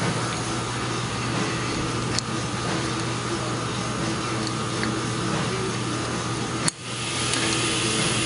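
Steady mechanical hum with hiss and a constant low tone, a light click about two seconds in, and a sudden momentary drop-out shortly before the end.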